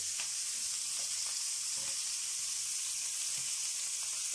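Masala-marinated red snapper frying in hot oil on a flat iron pan: a steady sizzle with a few faint pops.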